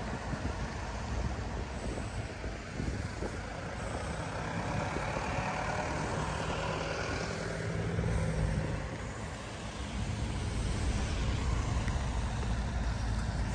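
Road vehicles on the move: a low engine rumble with tyre noise, and a small truck's engine drone swelling as it drives close past about a third of the way in.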